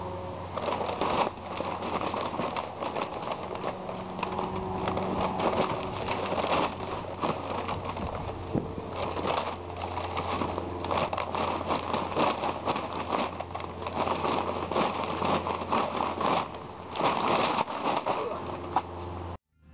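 A heavy paper yard-waste bag crinkling and cut cedar branches crackling as they are stomped down inside it: a dense, irregular stream of crackles over a low steady hum. It cuts off suddenly near the end.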